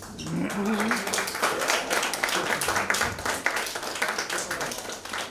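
Audience applauding, starting suddenly and going on steadily, with a voice heard briefly near the start.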